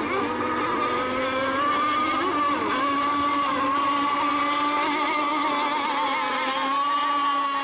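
Several radio-controlled racing boats' small engines running at speed: a steady, high engine whine, several pitches overlapping and wavering slightly as the boats race.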